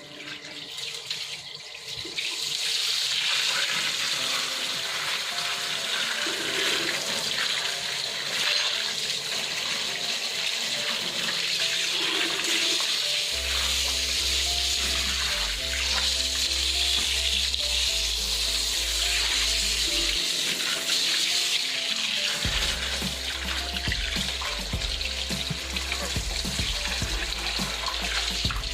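Background music with held melody notes and a low bass line that comes in about halfway through, over a steady rushing hiss that grows louder about two seconds in.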